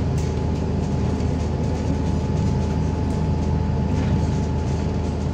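MAZ-203 city bus under way, heard from inside the cabin: the diesel engine and drivetrain run steadily with a dense low rumble of road noise, and a thin, steady high whine runs through it.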